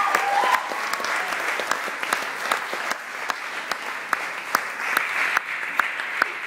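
Audience applauding: a dense, steady patter of clapping, with sharp single claps from someone close by standing out.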